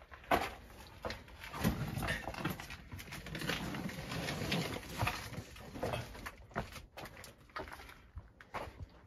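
A hiker's footsteps on a trail: an irregular run of scuffs and crunches, denser through the middle.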